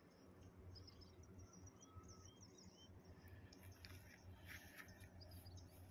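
Near silence: faint open-air ambience with a few short, distant bird chirps near the middle.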